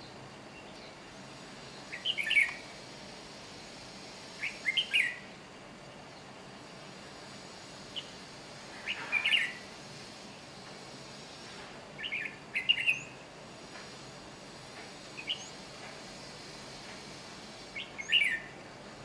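Red-whiskered bulbul singing: short, bright phrases of a few quick notes, repeated about every two to four seconds.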